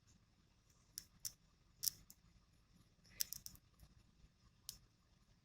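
A handful of faint, sharp clicks at irregular intervals: one about a second in, others near one and a half and two seconds, a quick cluster a little past three seconds, and a last one near the end.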